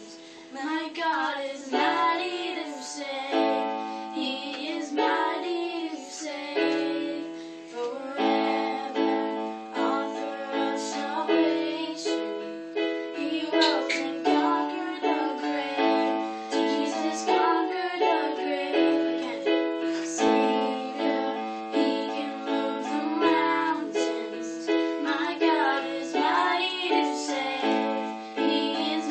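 Children singing a worship song, accompanied by sustained chords played on an electronic keyboard.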